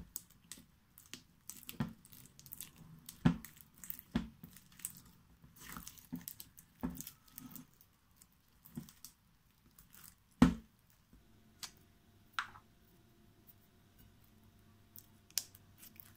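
Hands squishing, poking and stretching thick slime, making irregular sticky pops and crackles, loudest about three and ten seconds in. After about eleven seconds the sounds thin out to a few faint clicks.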